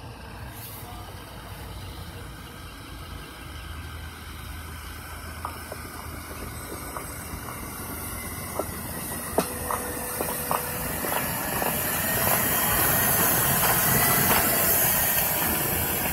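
Sperry track-inspection hi-rail truck running along the rails toward the listener and past, its engine and rolling noise growing steadily louder. Scattered sharp clicks from about five to eleven seconds in, and a strong hiss on top that is loudest near the end.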